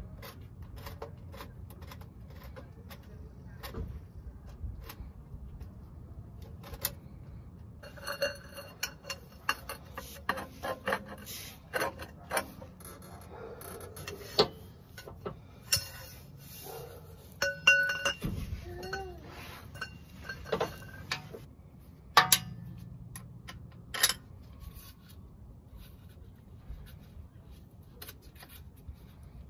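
Hand tools clinking and clicking on the driveshaft's rear flange bolts while the driveshaft is taken off: scattered sharp metallic clinks, busiest between about eight and twenty-two seconds in, some with a brief ring.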